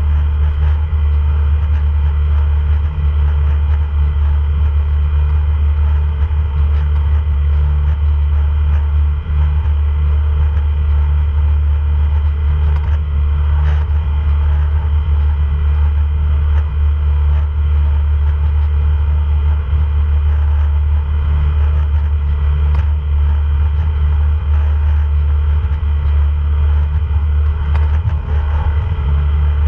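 A boat's engine running steadily while under way: a loud, constant low drone with a few steady higher tones over it.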